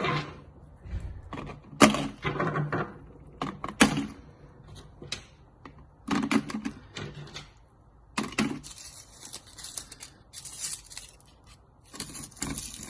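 Stones, sticks and leaves being dropped and pushed into a small plastic bottle: irregular clicks and rattles, with stretches of crinkling plastic and leaves.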